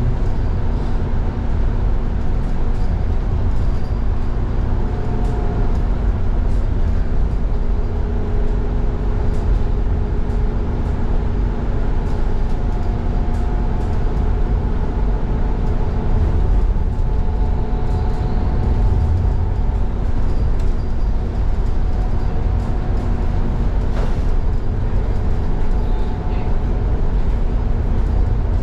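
Interior ride noise of an Irizar ie tram electric bus on the move: a steady low road-and-tyre rumble with a few even humming tones over it.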